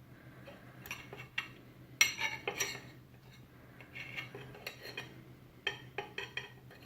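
Fork scraping and clinking on a plate with leftover food, in short irregular strokes, loudest about two seconds in, over a faint steady low hum.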